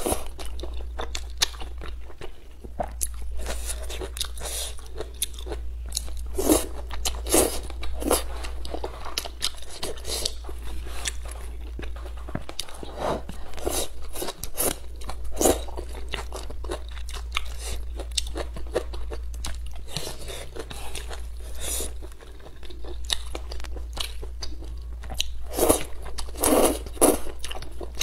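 Close-miked eating: thick spicy rice noodles slurped off chopsticks and chewed wetly, with many small mouth clicks and smacks. Louder slurps come in a few bunches, the last near the end.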